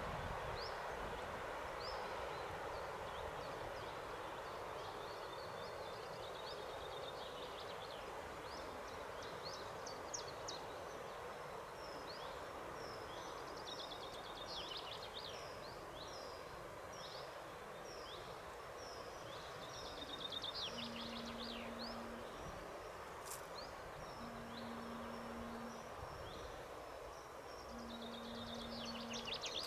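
Outdoor ambience of small songbirds singing in short high chirps and trills over a steady background rush. Late on, a low drawn-out tone repeats about every three and a half seconds.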